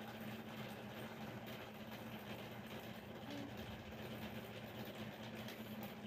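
Steady low hum over an even background hiss, unchanging throughout.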